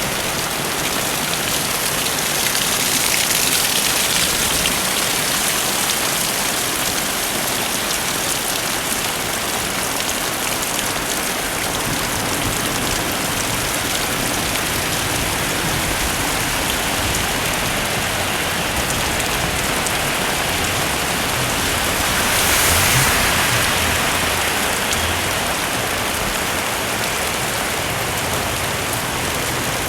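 Heavy rain falling steadily, a dense hiss of drops on surfaces. It swells louder briefly a few seconds in and again about two-thirds of the way through.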